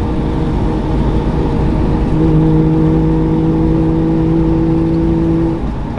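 Saab two-stroke three-cylinder engine pulling at a steady cruising speed, heard from inside the cabin with road noise. A steady droning tone joins in about two seconds in and drops away shortly before the end.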